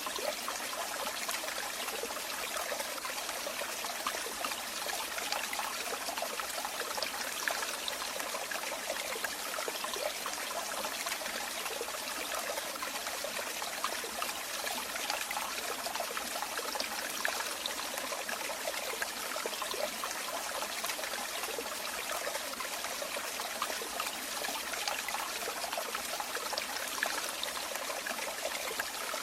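Running water flowing and splashing steadily, a dense trickling and bubbling of moving water.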